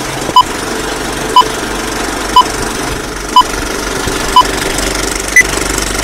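Film countdown leader sound effect: a steady film-projector rattle with a short beep once a second, five at one pitch and a sixth, higher beep near the end.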